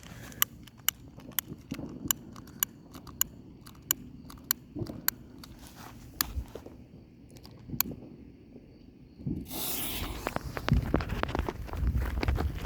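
A firework cake's fuse being lit: sharp, irregular clicks and crackles, then a sudden loud hiss about nine and a half seconds in, followed by denser crackling and low thumps.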